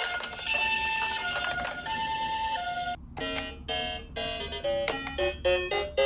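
Toy ambulance's electronic two-tone siren, alternating between a high and a low note roughly every half second. About halfway through it gives way to a quick tune of short electronic notes.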